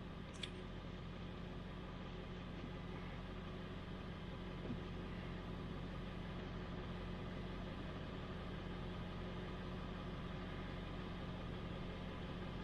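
A steady mechanical hum, as of an engine idling, with one sharp click about half a second in.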